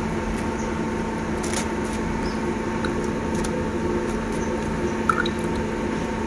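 A steady mechanical hum holding several fixed tones, with a few faint ticks.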